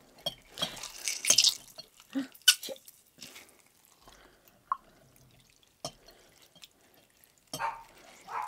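Water dripping and splashing into a glass bowl of water as soaked gelatin leaves are squeezed out by hand: irregular drips and small splashes, busiest about a second in and again near the end, with a few light clicks between.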